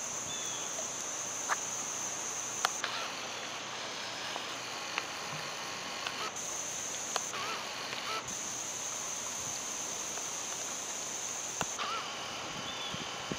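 A steady, high-pitched insect chorus that cuts out and back in several times, over outdoor ambience with a few sharp clicks.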